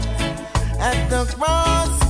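Reggae music with a heavy, rhythmic bass line and a gliding melodic lead.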